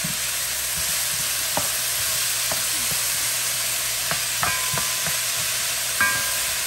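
Broccoli, Brussels sprouts and onions sizzling in a hot skillet, with a cooking utensil stirring them and clicking and scraping against the pan every second or so.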